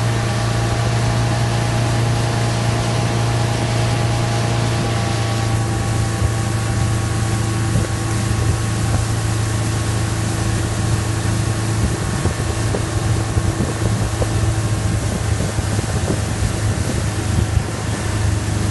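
Motorboat engine running steadily at speed as it tows, a low hum over the rush of the churning wake, with wind buffeting the microphone.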